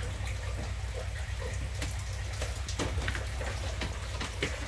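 Kitchen tap running water, with scattered small clicks and knocks over a low steady hum.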